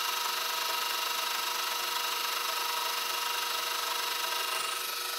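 Manual lathe cutting steel heavy-wall tubing with a carbide-insert boring bar: a steady machine hum and whine with the hiss of the cut, easing slightly near the end. The insert is cutting well and throwing a decent chip.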